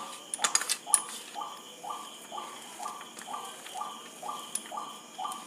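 A hand kneading and pressing a moist, sticky filling of mawa and coarsely ground nuts against a steel plate: a soft squishing rub repeating about twice a second, with a few light clicks of fingers or bangles against the plate near the start.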